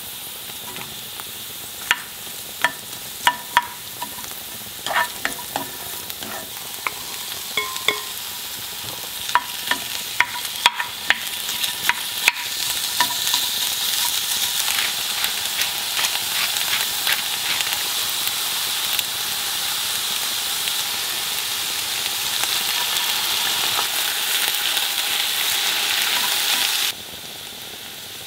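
Garlic scapes stir-frying in oil in a hot skillet, sizzling, with a wooden spoon clicking and scraping against the pan. The sizzle grows louder about halfway through, once onion and raw ground pork go in, then drops suddenly near the end.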